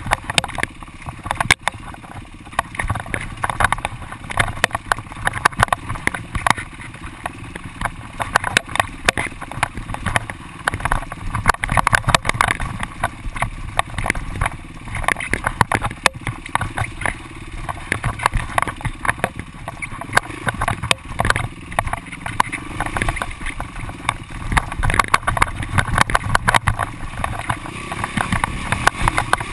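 Yamaha YZ450F single-cylinder four-stroke dirt bike engine running as it is ridden over a rough, rocky trail, with frequent knocks and rattles from the bumps.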